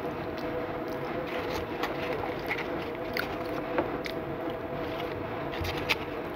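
A person chewing a mouthful of food, with small scattered mouth clicks, over a steady background hum.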